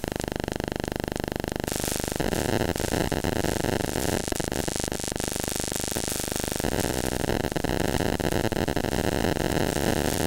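Radio interference from an iPhone 12 Pro held against a drum machine, coming out of the drum machine's audio as loud, buzzing, chattering digital static. The texture shifts about two seconds in and again near seven seconds, like the sound of an old dial-up modem.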